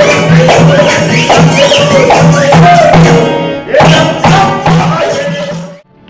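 Live Rajasthani folk music: a high voice, likely a woman's, singing over a dholak drum beating a steady rhythm of about three strokes a second, with jingling percussion. The music cuts off suddenly near the end.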